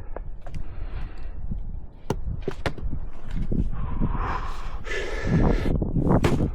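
Fiskars splitting maul knocking into a tough cherry round: a few sharp knocks in the first three seconds, then heavy breathing from the swinging, and a louder strike near the end.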